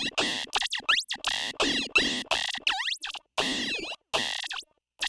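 Analog synthesizer tones through a voltage-controlled vowel formant filter: a rapid run of short, boingy bleeps with swooping pitch glides. A few brief silent gaps break the run in its second half.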